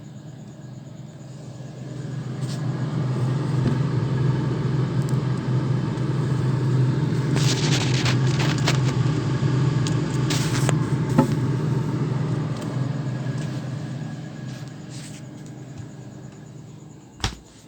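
Samsung refrigerator making its problem noise: a loud low hum and rumble that builds about two seconds in, holds, then dies down near the end. There are a few clicks and rattles in the middle and one sharp click near the end.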